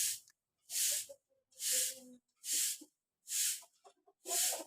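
Hill myna giving short breathy hisses over and over, six in a row at an even pace of a little more than one a second.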